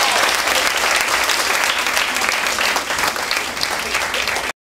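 Theatre audience applauding, a dense, steady clapping that cuts off suddenly near the end.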